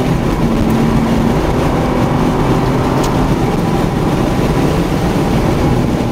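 Car engine running at speed, heard from inside the cabin, its note holding steady and shifting in pitch a few times, over heavy wind and road noise.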